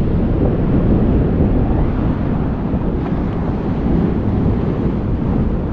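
Strong wind blowing on the microphone, with choppy sea surf breaking and washing over the rocks; a steady, rough noise heavy in the low end.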